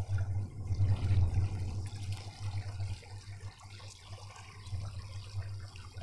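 Steady rush of flowing river water, over a low, uneven rumble that is loudest about a second in.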